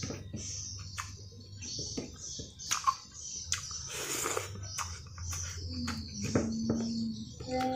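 Close-up mouth sounds of eating by hand: wet chewing, lip smacks and sharp clicks as rice, omelette and vegetables are eaten, over a steady low hum. A short low steady tone comes in about six seconds in.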